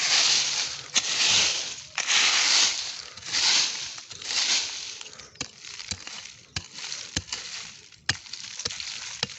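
A hand digging tool chopping and scraping into soil and dry leaf litter, about one stroke a second at first, then lighter, sharper ticks and knocks.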